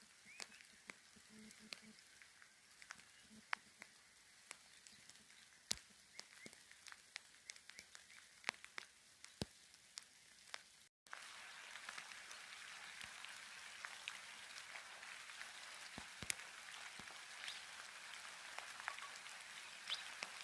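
Rain falling, with many separate drops dripping and tapping as sharp clicks over a soft hiss. The hiss steps up and grows steadier after a short break about eleven seconds in.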